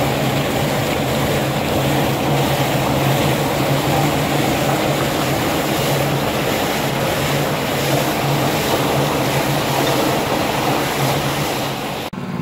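Water gushing hard from the open ball valve on a freshly tapped water main, a steady rushing noise, over a steady low engine hum. Both cut off sharply near the end.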